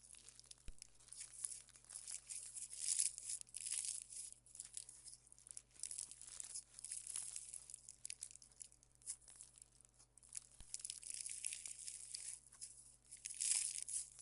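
Slime being squeezed and stretched by hand, crackling and popping in irregular bursts, loudest about three seconds in and again near the end.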